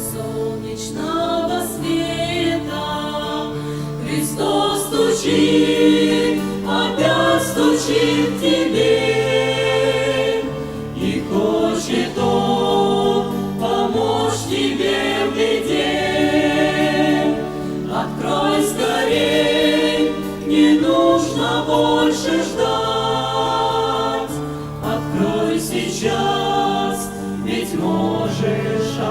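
A choir singing a Christian gospel song over steady held low accompaniment notes.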